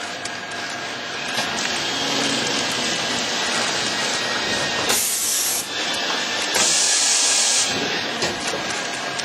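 Plastic-film packaging machine running, a steady mechanical clatter with rapid small clicks. Two loud air hisses cut in, a short one about halfway through and a longer one of about a second just after, typical of pneumatic cylinders venting.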